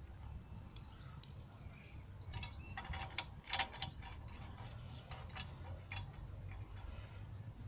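Light metallic clicks and ticks of a washer and bolt being handled and turned by hand into a nut welded to a steel jointer guard, scattered and busiest around the middle.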